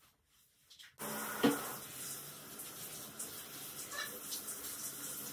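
Hand-held shower head spraying water over a Shetland Sheepdog's wet coat, turned on abruptly about a second in and then running steadily. A short, loud pitched sound comes just after the water starts, and a fainter one near the end.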